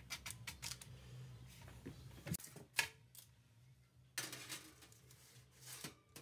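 Pumpkin seeds clicking and rattling against a parchment-lined metal baking pan as they are spread out by hand, then a couple of sharp clinks and a longer rustle of parchment as a paper-lined tray of seeds is slid onto an oven rack.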